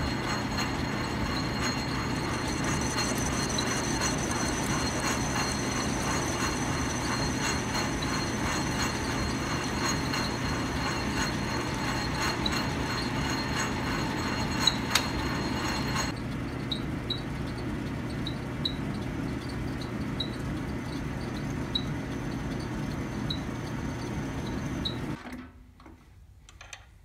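Logan metal lathe running under power, its cutting tool facing the end of bar stock held in the chuck, with a steady motor hum and a higher cutting noise over it. About two-thirds of the way through the cutting noise drops away, leaving the lathe spinning with a light tick repeating about twice a second. Near the end the motor is switched off and runs down.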